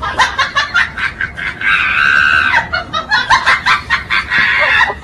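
A person's loud, high-pitched laughing and shrieking in quick stuttering bursts, with one held shriek about two seconds in.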